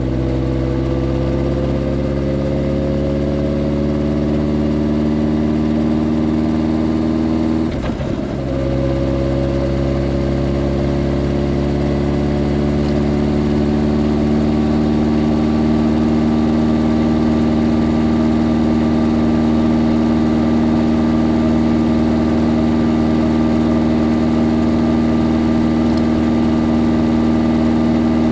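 Motorcycle engine running steadily on the move, its pitch rising slowly, with a brief drop in sound about eight seconds in.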